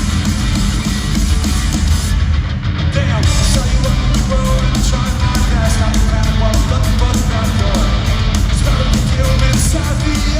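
Loud live rock band playing, heard from within an arena crowd: heavy bass, drums and electric guitar. The cymbals drop out briefly about two seconds in, then come back with a steady beat.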